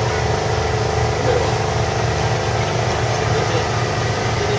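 A boat's engine running steadily: a low, evenly pulsing hum with a steady higher drone over it.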